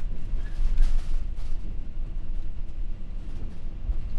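Heavy low rumble inside an MD-11F cockpit as the wheels touch down and roll along the runway, with a few light knocks about a second in.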